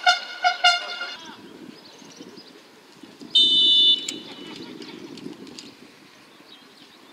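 Accordion music cutting off about a second in, then a referee's whistle blown once in a short shrill blast of under a second, over faint outdoor background noise.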